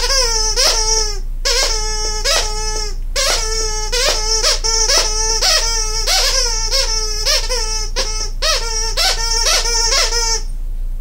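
Squeaker inside a plush owl dog toy squeaked over and over as the dog chomps on it: a rapid run of high squeals, about three a second, with short breaks about a second and three seconds in. The squeaking stops shortly before the end.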